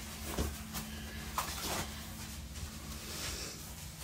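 Faint rustling and small scattered clicks as a waist trainer is wrapped on and fastened, over a low steady hum.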